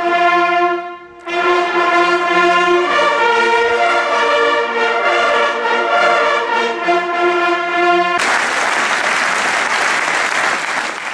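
Brass hunting horns playing a tune in held chords, with a brief gap about a second in. About eight seconds in the playing ends and a large crowd applauds.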